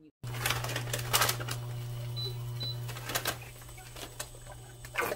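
Cooking at an induction cooktop: a wok clatters on the glass top several times over a steady low hum that starts abruptly, with two short high beeps about two seconds in, like presses on the touch controls.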